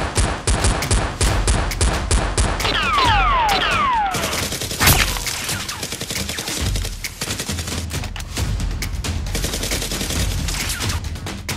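Rapid gunfire sound effects, many shots in quick succession, added over a Nerf blaster fight. A few falling whistles come about three seconds in, with background music underneath.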